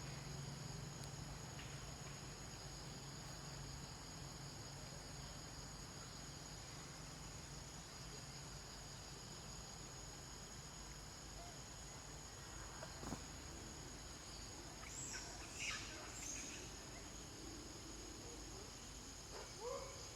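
Steady high-pitched drone of an insect chorus, with a few short high chirping calls about two-thirds of the way through and near the end.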